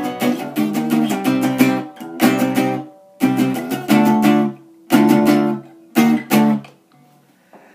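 Acoustic guitar strumming the closing chords of a song, dense at first and then as single strummed chords about a second apart; the last two come about six seconds in and ring out.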